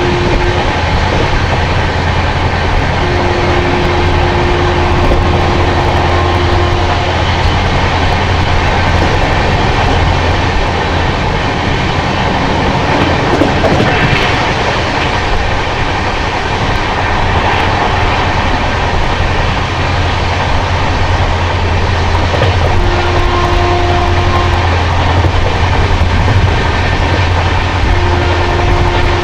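Steady running noise of an AC double-decker express train at speed, heard from aboard. A flat hum sounds over it in stretches of a few seconds, three times.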